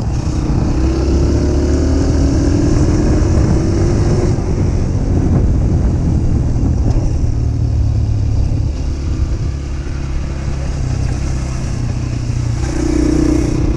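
Honda CRF150F dirt bike's single-cylinder four-stroke engine running under way, rising in pitch as it accelerates over the first few seconds, then holding a steady pace.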